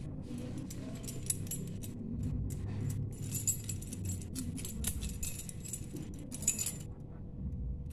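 A bunch of metal keys on a lanyard jangling as they are dangled, shaken and swatted by a kitten, in quick irregular runs of small clinks that stop about seven seconds in.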